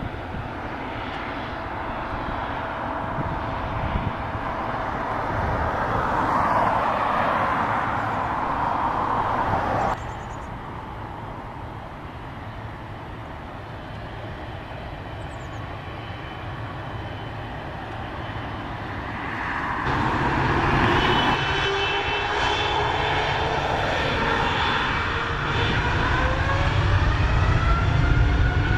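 Boeing 777's twin jet engines running as the airliner taxis and lines up. About two-thirds of the way through they spool up for the takeoff roll, with a whine that rises in pitch and grows louder.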